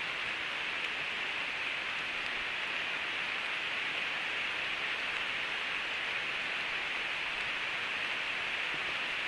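Heavy rain falling steadily on the forest foliage, an even hiss with no breaks.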